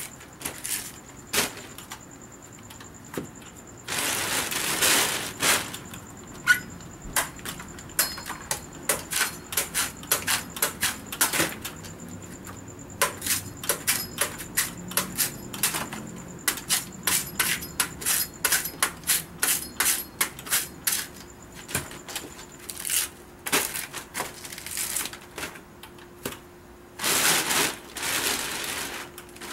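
A large knife chopping and shaving the fibrous husk off a young Nam-Hom coconut, in sharp strokes that come in fast runs of about three a second. There are a couple of longer noisy stretches between the runs.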